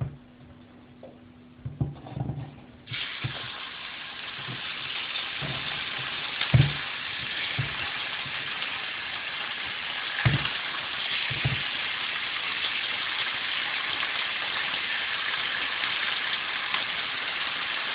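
Chicken breast fillets sizzling in olive oil in a hot frying pan. The sizzle starts suddenly about three seconds in, as the fillets go into the pan, and then runs on steadily, with a few short knocks from handling.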